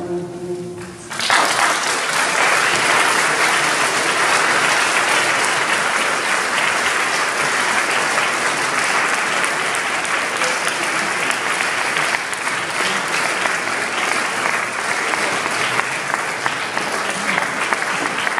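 The choir's last chord dies away, then an audience breaks into applause about a second in and keeps clapping steadily.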